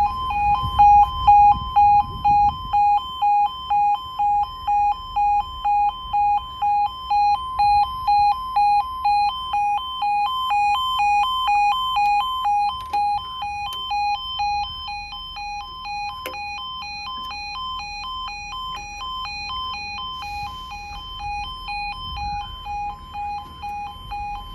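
Railway level crossing's audible warning sounder beeping a two-pitch tone about twice a second, warning that the barriers are lowering for a train. The beeps grow fainter about halfway through.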